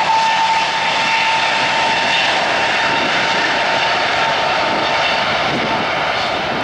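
An Airbus A320neo's CFM LEAP-1A turbofan engines running loud as the jet rolls down the runway, with a steady whine over the engine rush. The sound eases slowly as the aircraft draws away.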